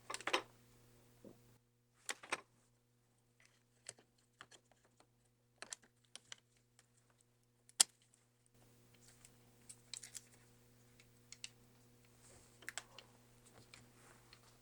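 Scattered light clicks and taps from handling a small replacement MacBook Pro speaker and its plastic parts. One sharper click comes about 8 seconds in, and a faint steady hum runs underneath.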